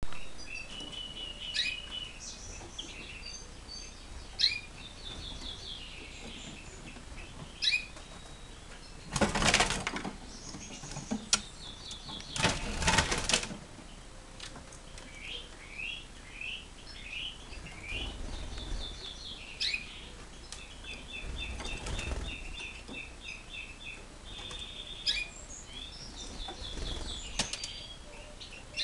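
A small caged songbird chirping and twittering in quick runs of short high calls, with two loud bursts of wing flapping about nine and twelve seconds in as it flutters in its wooden box cage.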